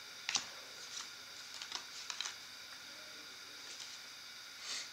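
Baseball trading cards being handled and flipped through by hand: a sharp click about a third of a second in, a few softer clicks over the next two seconds, and a short swish near the end, over a steady faint hiss.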